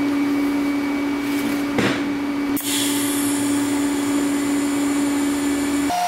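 A small handheld power tool running steadily at high speed, with a rougher hiss joining in about two and a half seconds in.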